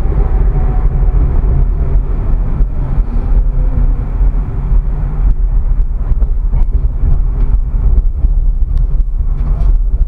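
Tram running on street track, heard from the cab: a steady low rumble of motors and wheels on rail, with a whine that falls in pitch over the first two seconds. From about five seconds in, a run of sharp clicks and knocks as the wheels pass over the rail crossings of a junction.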